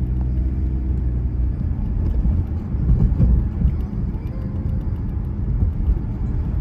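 Car engine and road noise heard from inside the cabin while driving with a camping trailer in tow: a steady low rumble.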